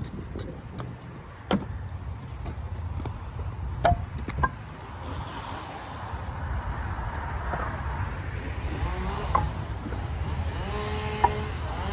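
A few sharp wooden knocks, split firewood being set onto a stack, over a steady low rumble. In the last few seconds a vehicle engine passes, its pitch sliding up and down.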